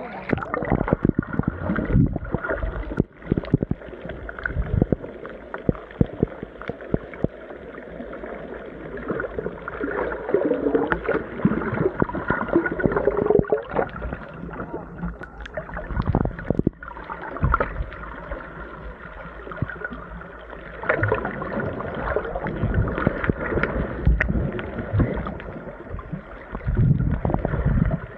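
Muffled water noise heard through a camera microphone held underwater: rushing, gurgling and sloshing with frequent irregular knocks and surges as the camera moves through the water.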